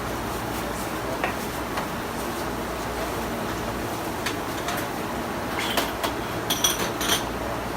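Steady background hum, with a few light clicks early on and a quick cluster of sharper knocks and clicks near the end.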